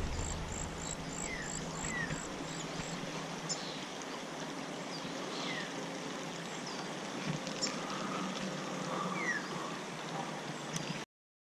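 Steady rush of a small creek, with a few short chirps from small birds now and then. A quick run of faint high ticks sounds over the first few seconds, and the sound cuts off abruptly just before the end.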